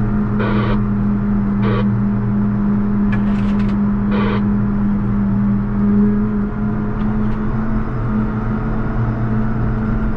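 JCB Fastrac 4220 tractor's diesel engine running at a steady drone while the tractor pushes snow with a front plow. A few short bursts of higher-pitched noise break in a second or two apart.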